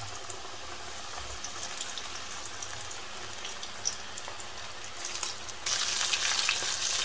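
Floured chicken drumsticks deep-frying in hot oil at 160 °C: a steady sizzle with fine crackling. The sizzle grows louder near the end as a second drumstick goes into the oil.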